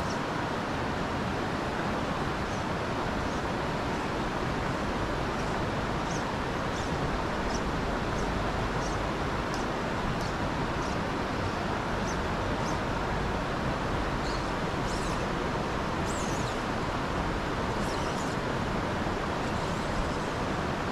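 Steady rush of a shallow, rocky creek flowing over stones and riffles, with scattered faint, short high bird chirps throughout.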